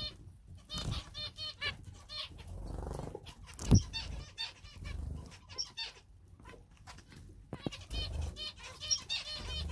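Small cage finches calling with rapid runs of short, repeated nasal notes while wings flutter, with one sharp knock about four seconds in.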